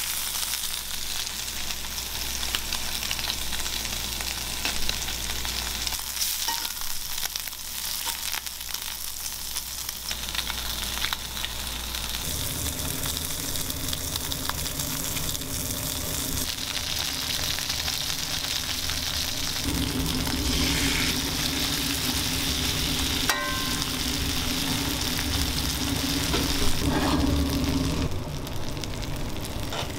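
Pork neck steak and sliced vegetables sizzling in oil in a frying pan, a steady hiss with a few light clicks of metal tongs, one ringing briefly. A steady low hum comes in about twelve seconds in and grows stronger later.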